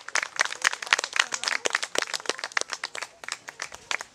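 A small audience clapping, an irregular patter of hand claps that thins out and gets quieter near the end.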